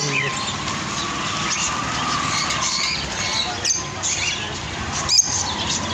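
Many small birds chirping in short, high calls, with a sharp knock about five seconds in.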